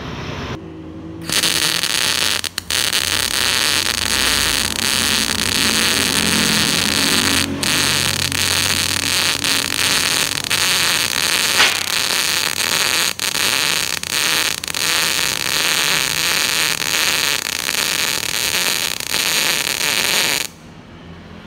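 Gas-shielded MIG welding arc sizzling steadily as a continuous drag (pull) bead is run on thick steel angle. It starts about a second in, breaks off for an instant a few times, and stops shortly before the end.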